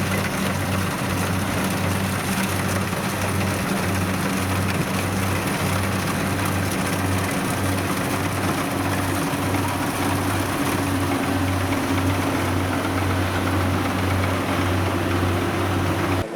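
Kubota combine harvester's diesel engine running steadily, with a low throb that pulses evenly a little under twice a second.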